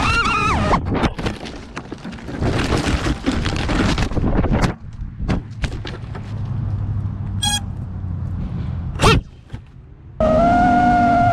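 FPV quadcopter's brushless motors whining at a high pitch, then breaking off as the drone crashes: a series of impacts and clattering, tumbling noise, a short pulsing buzz in the middle, and a sharp, loud hit about nine seconds in. Near the end another quad's motor whine starts abruptly.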